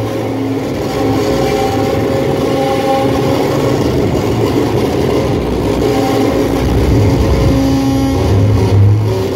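Live noise music played loud through a PA: a dense, distorted wall of sound with low held tones that swell and fade under a rough noisy haze.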